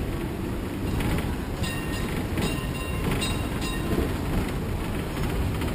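Hong Kong double-decker tram rumbling and clattering along its rails, while a tram's warning bell rings "ding" about four times in quick succession, starting about a second and a half in.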